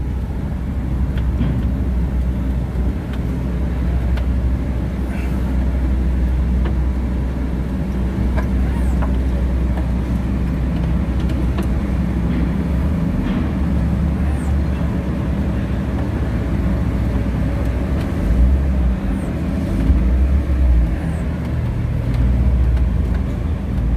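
Low, steady engine rumble of a motor vehicle, swelling louder a few times near the end.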